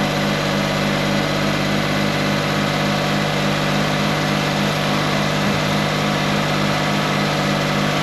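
Suzuki Kei's engine running steadily, with an even pulsing a few times a second. It is a test run with the front brake caliper unbolted, to trace a knocking noise under drive load that the mechanic suspects comes from the driveshaft or the hub bearing.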